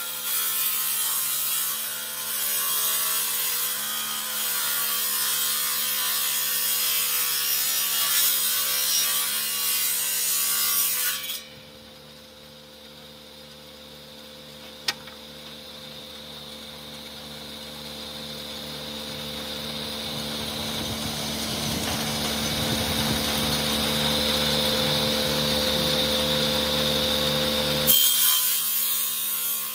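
Table saw ripping a long board. The blade cuts through the wood loudly until about eleven seconds in, when the cut stops and only the quieter hum of the running saw is left, with one sharp click. That sound slowly builds until the blade bites into the wood loudly again near the end.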